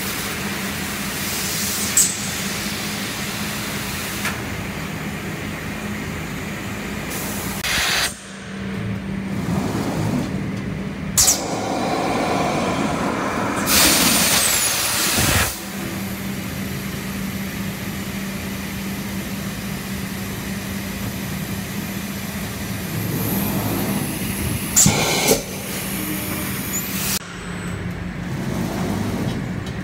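TSMP-9570 thermoforming machine running: a steady hum with a low tone, broken by loud bursts of hissing, a short one about eight seconds in and a longer one around fourteen seconds, and by several sharp knocks.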